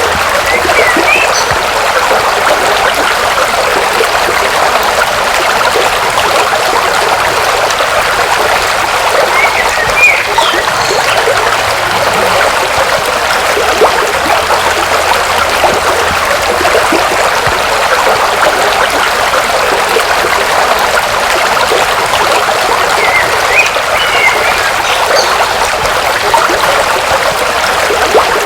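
River water running over rocks, a steady rushing babble. A few short high chirps break through it now and then.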